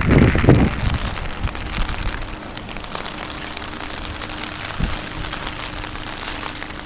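Heavy rain falling, a steady hiss dense with the patter of drops. A loud low rumble in the first second dies away, and there is a single soft thump near the five-second mark.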